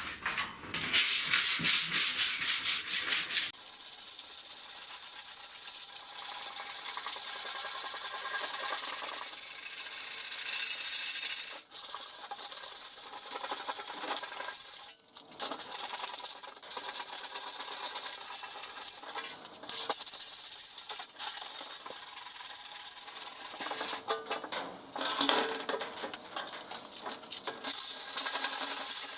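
Abrasive rubbing on the rusty steel of a jerry can to strip the rust, in quick back-and-forth strokes for the first few seconds, then a steadier scrubbing with brief pauses.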